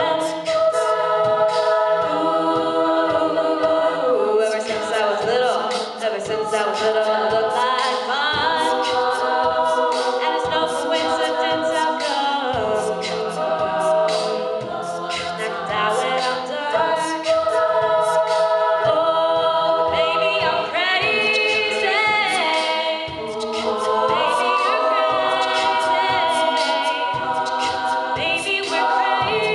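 Women's a cappella group singing in close harmony, with a solo voice over the backing voices and beatboxed vocal percussion keeping a steady beat.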